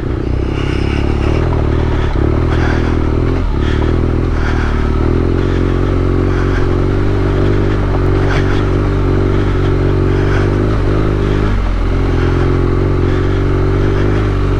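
BMW R nineT's 1170 cc air/oil-cooled boxer twin running at low revs while the bike rides a rough dirt track, with tyres and chassis clattering over the ground. The engine note dips briefly three times, as when the throttle is rolled off.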